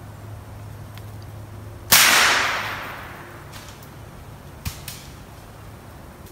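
.22 LR rifle shot about two seconds in: one sharp crack that echoes and fades over about a second through the woods. A couple of faint clicks follow nearly three seconds later.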